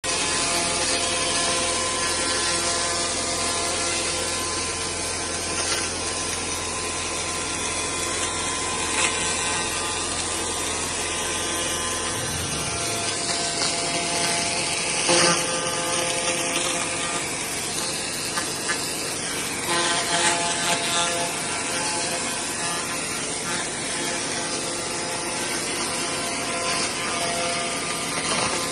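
Narran ROD300 laser cleaner ablating soot: a steady, dense crackling hiss with several steady whining tones through it. A low hum underneath cuts off about twelve seconds in.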